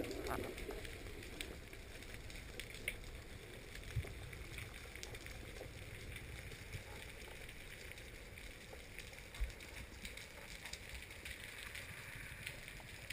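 Underwater sea ambience heard through the diving camera during a freediver's descent: a faint, even hiss and low rumble with scattered sharp clicks and crackles, and a couple of louder knocks about four and nine seconds in.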